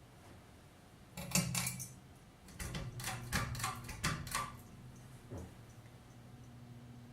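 Light metallic rattling and several sharp clicks over about three seconds. A steady low electric hum from the NuTone Hacienda ceiling fan's motor sets in partway through and holds on after the clicks stop.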